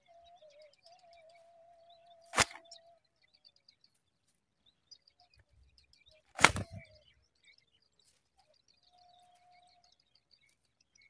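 Two sharp knocks about four seconds apart, the second and louder one with a short rustle of grass as an adult zitting cisticola leaves its grass nest. Faint high chirping throughout.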